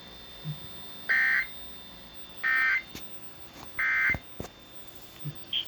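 Three short bursts of screechy digital data tones about 1.3 s apart: the SAME End of Message code that closes an Emergency Alert System test, received over weather radio.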